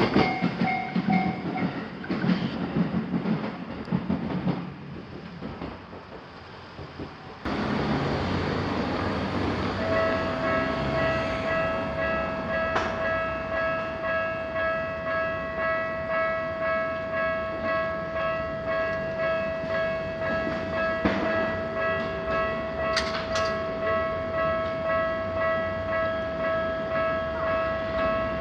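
A train running past on the rails, its noise fading away over the first several seconds. About ten seconds in, a Japanese level-crossing electronic warning bell starts up, ringing in a steady repeating pulse.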